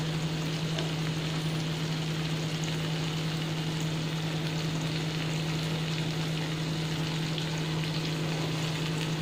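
Brinjal slices in a malai-and-masala gravy sizzling steadily in a nonstick kadai over a high gas flame as the gravy comes to the boil. A steady low hum runs underneath.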